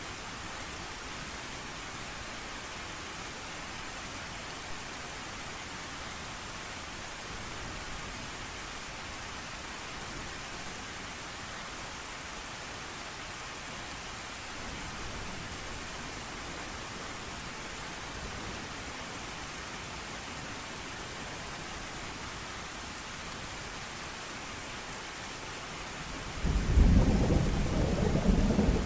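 Steady rain falling. Near the end, a loud low rumble of thunder breaks in and keeps rolling.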